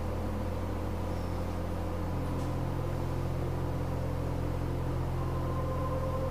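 A steady low hum, with a few faint held tones above it that change slowly, one starting about five seconds in.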